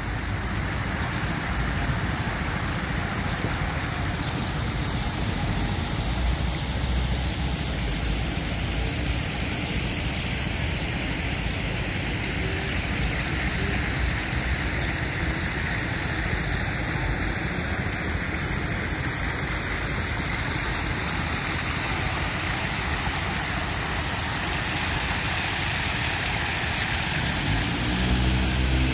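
Steady city traffic noise of cars and engines, a little louder near the end.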